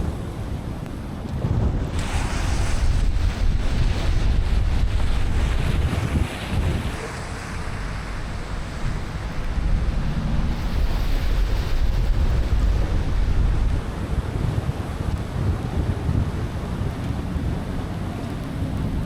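Car driving on wet city streets in the rain: a steady low road rumble with tyre hiss from the wet pavement. The hiss grows louder and brighter from about two seconds in, then settles back after several seconds.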